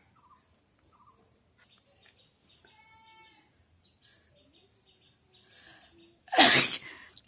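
A woman sneezes once, loudly and uncovered, about six seconds in. A faint high chirping repeats steadily in the background.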